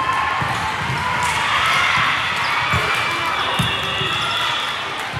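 Volleyball hall ambience: scattered low thuds of volleyballs being hit and bouncing on several courts, over a steady din of players' voices echoing in the large hall.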